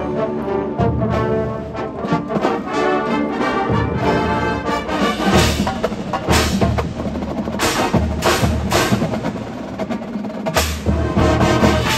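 Drum and bugle corps playing live, with the percussion to the fore: mallet keyboards and drums in a fast rhythmic passage, then sharp accented hits about once a second in the second half, with deep bass-drum strokes between them.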